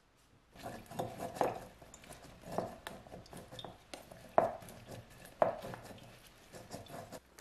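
Wooden spoon pressing fried tofu pockets down in a stainless steel mesh strainer to squeeze out liquid: irregular scraping and rustling starting about half a second in, with several sharp knocks of the spoon against the strainer, the two loudest past the middle.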